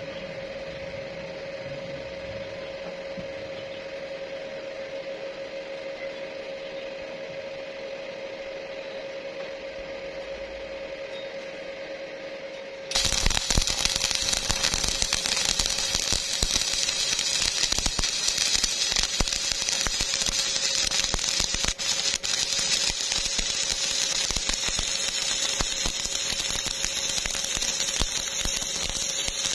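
Stick (arc) welding electrode on a steel pipe joint: a steady hum, then about halfway through the arc strikes and sets up a loud, dense, steady crackle and sizzle.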